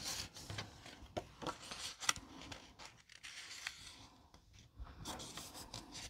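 Sheets of card stock rustling and sliding as they are picked up and folded in half by hand, with a few light clicks and taps.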